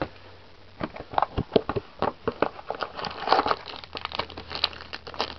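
Foil wrapper of a Yu-Gi-Oh Gold Series 3 booster pack crinkling and crackling as it is handled. The crackles are quick and irregular and start about a second in.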